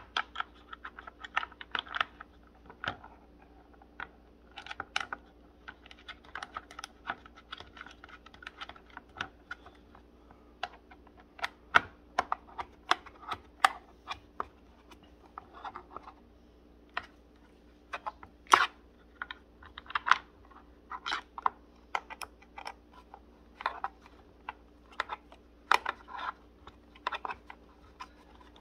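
Irregular light clicks and knocks of gaming-chair parts being handled and fitted together during assembly, with a few sharper knocks among them.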